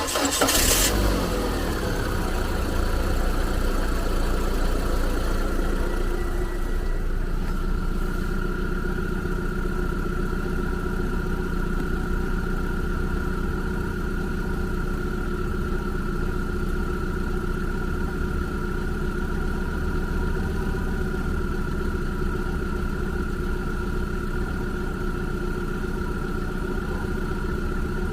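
Car engine being started: a brief burst of cranking as it catches, then the revs settle with a whine dropping in pitch over the first couple of seconds, and it runs on at a steady idle.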